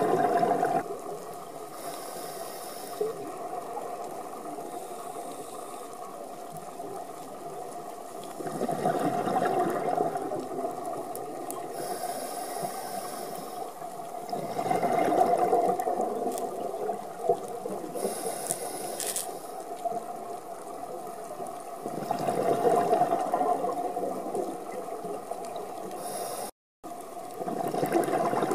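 Scuba diver breathing through a regulator underwater: a bubbling exhale about every six to eight seconds, with fainter hissing inhales between them, over a steady hum. The sound cuts out briefly near the end.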